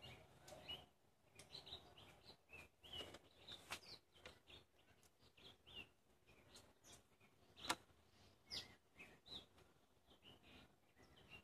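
Near silence, with faint scattered bird chirps and a few light clicks, the sharpest about two-thirds of the way in.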